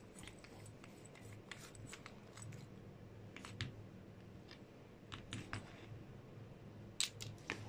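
Faint small metallic clicks and handling noise as a PCP air rifle regulator is taken apart by hand. The brass piston and its stack of Belleville washer springs are worked out of the housing. A sharper pair of clicks comes near the end.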